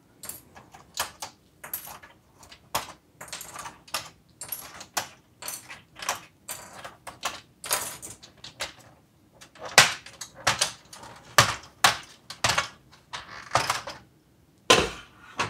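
Irregular plastic clicks and taps, several a second, from a GM truck instrument cluster being taken apart: gauge needles are pried off with a plastic tool and set down, and the faceplate is handled. The knocks are louder in the second half.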